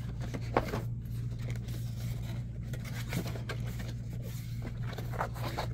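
Cardboard headphone box being handled, its outer sleeve and flap rubbing and tapping in scattered light scrapes and knocks, over a steady low hum.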